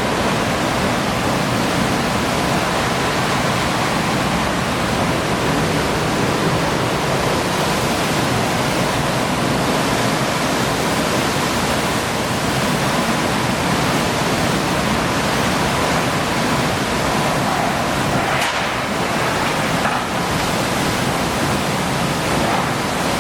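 Hurricane wind and driving rain: a loud, steady rush of storm noise with slight swells.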